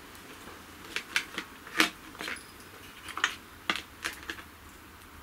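Irregular small clicks and taps of hands handling the wiring and small plastic fittings on a model-aircraft petrol engine that is not running, about a dozen in all, the loudest about two seconds in.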